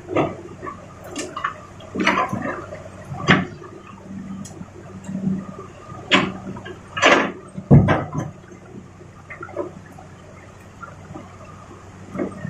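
Excavator loading rock into a dump truck: a series of loud, irregular crashes and rushes of tumbling stone, mostly in the first eight seconds. A steady low engine hum runs beneath.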